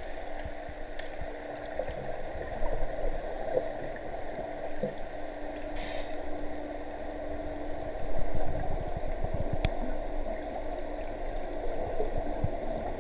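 Underwater pool sound, muffled through a waterproof camera housing: a steady hum and a dull wash of noise, with bubbling from scuba divers' exhalations and a few faint clicks.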